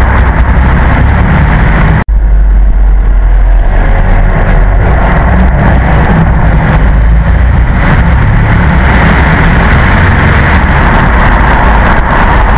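Mercedes SL55 AMG's supercharged 5.4-litre V8 running through a custom exhaust, extremely loud. There is a momentary break about two seconds in, after which the sound builds gradually over several seconds.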